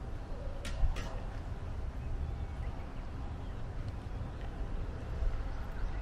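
Outdoor ambience dominated by wind buffeting the microphone as a low, fluctuating rumble, with two short sharp clicks about a second in.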